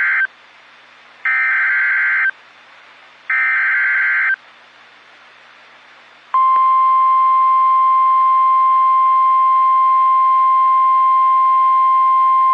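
Emergency Alert System header: the end of one burst of warbling digital data tones, then two more bursts of about a second each, a second apart. About six seconds in, the steady single-pitched attention tone starts and holds, signalling that a flash flood warning is about to be read.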